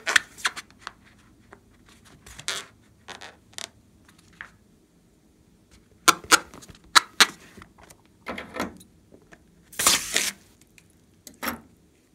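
A filled latex balloon handled and squeezed in the hands: short, irregular rubbery scrapes and crackles, the loudest clusters about six and ten seconds in.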